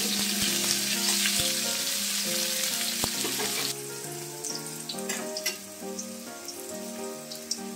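Bitter gourd slices sizzling as they fry in hot mustard oil in a wok, with a metal spatula clicking and scraping against the pan now and then. The sizzle turns quieter and thinner about four seconds in.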